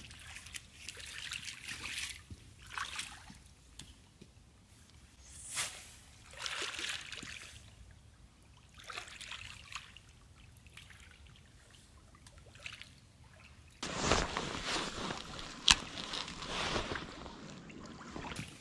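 Water sloshing and trickling in soft, separate swells, like small waves lapping at a lake shore. About 14 seconds in it cuts suddenly to a louder, steady rushing noise with a few sharp clicks.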